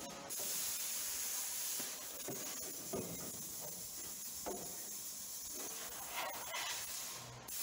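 Light knocks and scrapes of loose, cut trunk-floor sheet metal being handled and pulled free, a few times, over a faint steady hiss.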